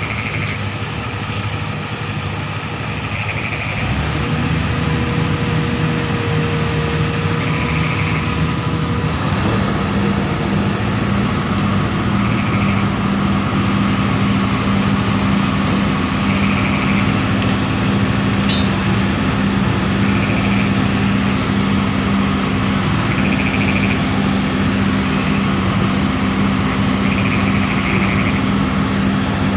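Heavy diesel engine of the crane-dismantling machinery running steadily, picking up speed about four seconds in and again near ten seconds, then holding a steady, louder hum.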